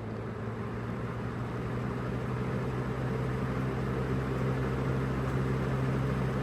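Lasko 3733 20-inch box fan, switched up to medium, speeding up: a steady motor hum under the rush of air, growing gradually louder. The motor has not yet been cleaned or oiled.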